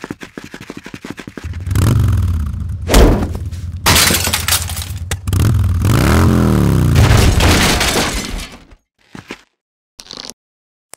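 Sound effects: a motorbike engine sputtering into life, then running and revving, its pitch rising and falling about six seconds in, mixed with crashing and breaking noises, with sharp impacts near three and four seconds in.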